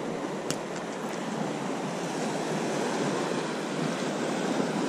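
Small waves breaking and washing on the shore in a steady surf hiss. A sharp click about half a second in, followed by two fainter ones.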